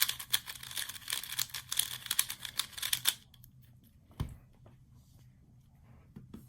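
A 3x3 speedcube's layers being turned quickly by hand: a fast, dense clatter of plastic clicks for about three seconds that then stops, followed by a single knock about a second later.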